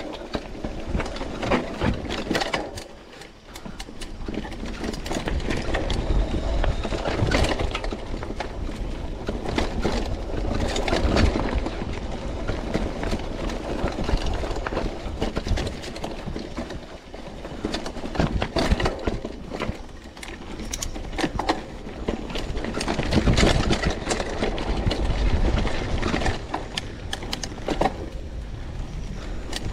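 Mountain bike descending a rough, rocky dirt trail: tyres crunching and skittering over stones and ruts, the bike rattling and clattering over the bumps, over a low rumble.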